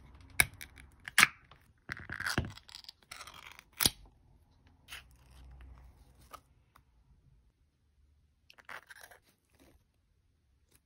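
Ring-pull lid of an aluminium can being opened: sharp clicks as the tab is lifted and the lid pops about a second in, then a tearing scrape as the lid is peeled off. Later a plastic spoon scrapes softly inside the can, digging into cream and sponge cake.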